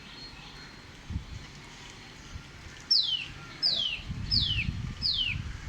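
A sunbird calling: a series of four clear, high whistled notes, each sliding downward in pitch, repeated evenly about every 0.7 seconds and starting about three seconds in. A low rumble sits underneath during the second half.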